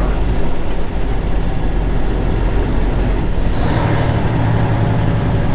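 International semi tractor's diesel engine running steadily, getting louder about three and a half seconds in.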